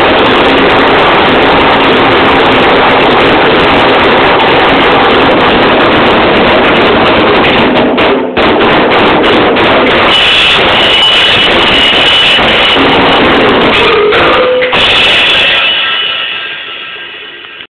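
Drum kit played hard and fast, with cymbals crashing over the drums, on a kit whose bass drum head has a hole in it; the sound is loud enough to overload the recording. There is a brief break about eight seconds in, and near the end the playing stops and the cymbals ring out and fade.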